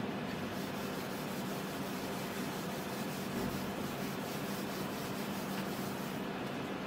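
Whiteboard eraser rubbing marker ink off a whiteboard in quick repeated strokes that stop near the end, over a steady low hum.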